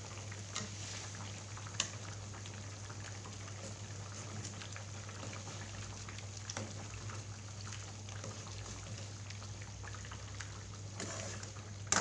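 A pot of pineapple fish curry simmering and bubbling, with scattered small pops and clicks over a steady low hum.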